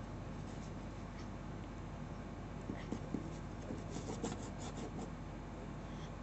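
Faint scratching of a glue bottle's nozzle dragging over paper as glue is squeezed out along a line, with a few light clicks and taps in the middle. A steady low hum underneath.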